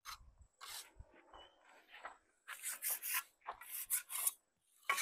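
A mason's tool scraping excess mortar off a mud-brick wall: short rasping scrapes, a few scattered at first, then a quicker run of them in the second half.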